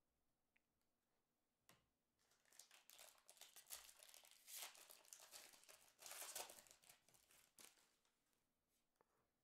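A foil trading-card pack wrapper being torn open by hand, crinkling and tearing in quick rustles from about two seconds in until near the end.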